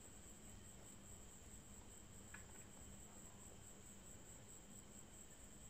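Near silence: faint room tone with a steady high-pitched whine and a low hum.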